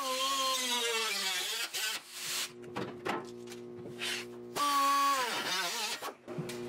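Small handheld cut-off tool whining and dropping in pitch as it bites into the rusty sheet steel of the windshield frame corner, stopping about two seconds in. It runs again briefly just past the halfway point.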